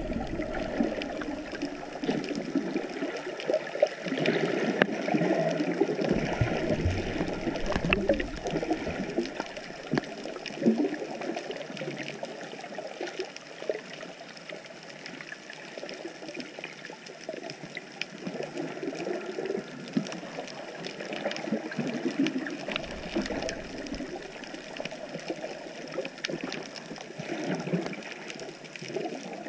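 Water sloshing and gurgling around an action camera held underwater, heard muffled through its waterproof housing, with many faint scattered clicks and two brief low rumbles.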